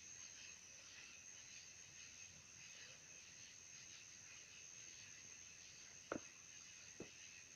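Near silence with the faint, steady chirring of crickets, and two brief faint clicks about six and seven seconds in.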